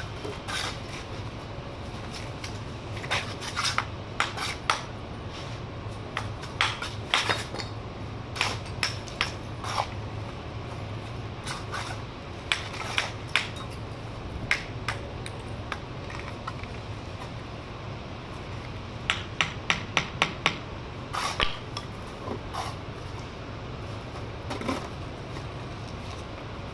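A steel mason's trowel tapping and scraping on bricks and mortar as bricks are laid and tapped down, in irregular clusters of sharp clicks, including a quick run of about six taps near the end. A steady low hum runs underneath.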